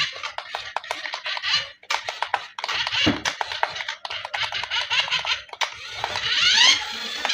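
Packaging being handled and unwrapped by hand, a dense run of crinkling and crackling with quick clicks and rasping sweeps.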